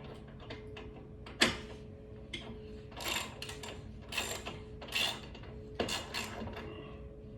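Irregular sharp clicks and knocks of hand tools and metal mounting hardware being handled, the loudest about a second and a half in, over a faint steady hum.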